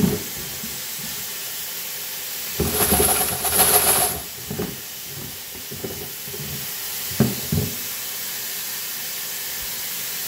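Faucet water running steadily into a Frankford Arsenal rotary tumbler drum at a utility sink, flushing the dirty wash water out through its strainer lid. A louder rush of water about three seconds in, and a couple of light knocks a few seconds later.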